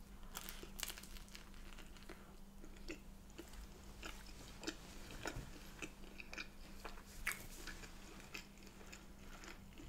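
Close-up biting and chewing of bread dipped in baked beans: faint, irregular wet mouth clicks and smacks.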